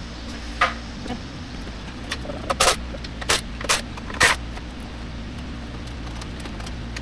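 A handful of sharp clicks and clinks from engine parts being handled and set down, bunched in the first half and loudest about two and a half and four seconds in, over a steady low hum.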